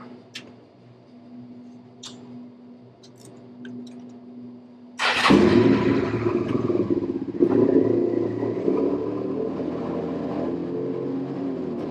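Suzuki SV650's V-twin engine starting up about five seconds in, after a few light clicks. It surges briefly a couple of seconds later, then runs steadily at idle.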